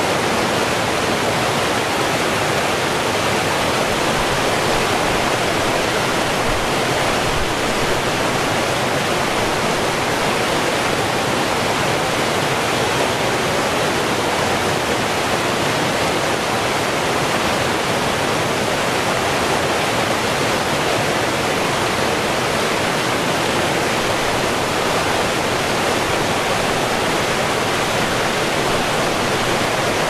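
Forest stream cascading over boulders in a small white-water fall, a steady, even rushing and splashing.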